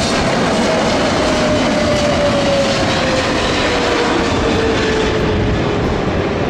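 Jet engines of a Boeing 777 airliner passing low on landing approach: a loud, steady rushing roar with an engine whine that falls slowly in pitch as the aircraft goes by.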